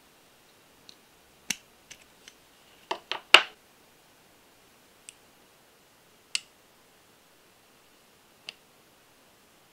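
Small metal parts of a miniature engine-model kit clicking and tapping as tweezers work at the wrist pin of a tiny aluminium piston and the piston and connecting rod are handled. About eight separate light clicks, with a quick cluster of sharper clicks about three seconds in the loudest.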